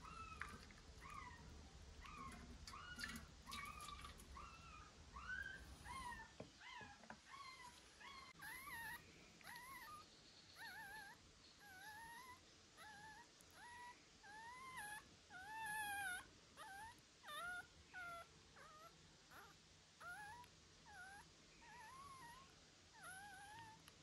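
Young puppy whimpering: quiet, high, short cries that rise and fall, repeated about once a second. A low rumble sits under the first six seconds.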